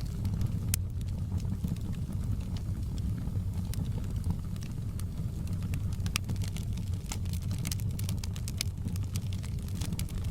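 Wood fire burning in a fireplace: a steady low rumble of flame with frequent sharp crackles and pops, which come thicker in the second half.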